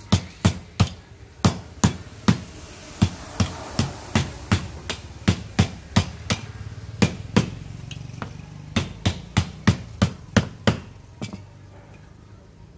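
A rapid series of sharp knocks, like hammer blows, two to three a second and slightly irregular, stopping shortly before the end.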